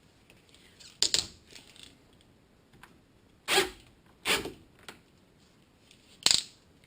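Wire stripping machine and thick stranded cable clacking and scraping as the cable is worked through it, five sharp irregular clacks a second or so apart.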